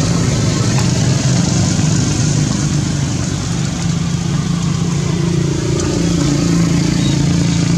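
A motor vehicle engine running steadily and loudly, a low hum with a steady rushing noise over it.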